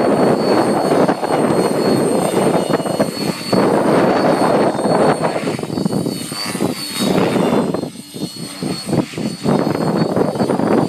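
Raptor 50 nitro RC helicopter with a multi-blade main rotor flying aerobatics: its glow engine and rotor blades make a loud, steady buzz that swells and fades as it manoeuvres. The sound dips and flutters briefly late on before coming back.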